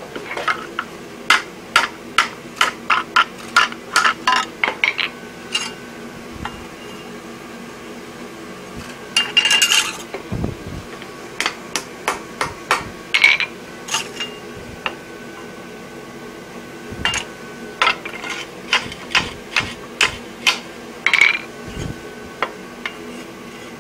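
Blacksmith's hand hammer striking red-hot steel on an anvil, in runs of quick blows about three a second with pauses between. There is a brief scraping clatter about ten seconds in.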